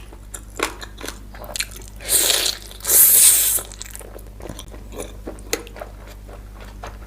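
A person chewing and biting food close to the microphone, with many small mouth clicks and two louder, noisy crunching stretches about two and three seconds in, each lasting well under a second.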